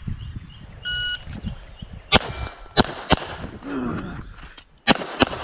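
A shot timer beeps once, then a Glock 44 .22 LR pistol fires five shots: three in quick succession, a pause of about a second and a half, then two more close together.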